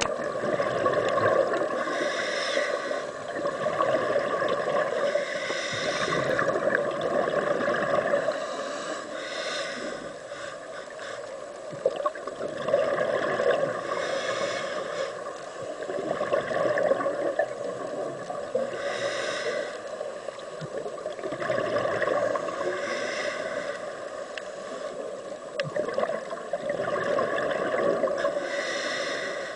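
Underwater sound of a scuba diver breathing through a regulator: a rushing swell of exhaled bubbles every three to five seconds over a steady hum.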